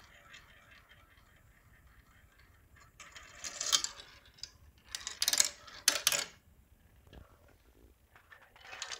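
A marble rolling through a plastic building-block marble run, spinning in funnels and running along curved track, with rattling clatters as it drops from piece to piece: bursts about three and five to six seconds in, and again near the end. It runs the whole section through without jamming.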